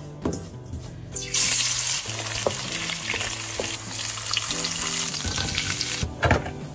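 Food sizzling as it fries in hot oil in a pan, a dense hiss that sets in about a second in and breaks off near the end. A couple of sharp knocks come just before and just after it.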